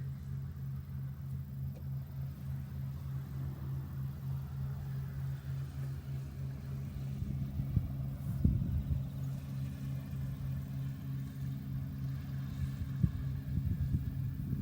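Small engine of a rice harvesting machine running steadily with a low, evenly pulsing hum. A few sharp knocks come in past the middle.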